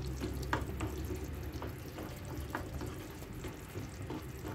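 Wooden spoon stirring a thick, simmering tomato sauce in a frying pan, with scattered soft ticks and scrapes of the spoon against the pan and a steady low hum underneath.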